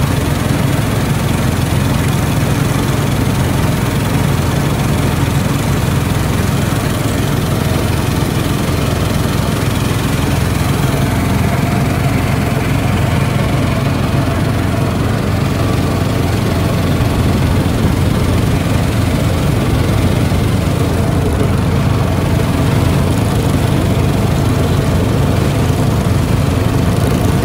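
The small engine of a wooden river sampan running steadily while the boat is under way.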